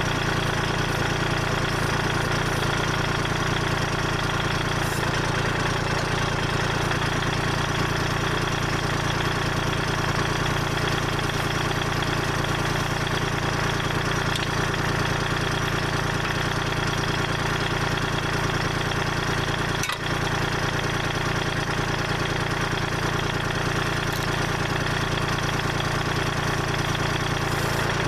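Kubota L2501 tractor's three-cylinder diesel engine running at a steady speed, with one brief dip in level about two-thirds of the way through.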